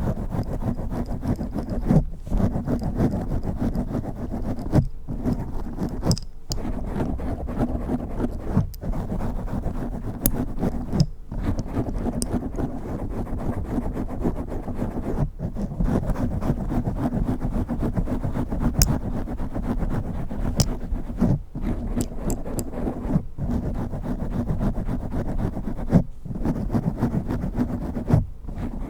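Fast, continuous scratching of fingernails with nail rings directly on a microphone, a dense rumbling scrape, with scattered sharp clicks and short breaks every few seconds.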